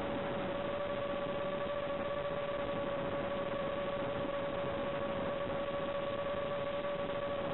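Steady whine of an Arris X210S racing quadcopter's motors at an even cruising throttle, holding one pitch throughout. It sits over a constant hiss of analog video-link static.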